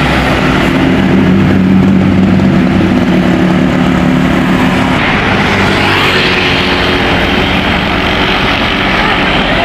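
Tour bus engine running loudly as the bus pulls away, its note changing about five seconds in.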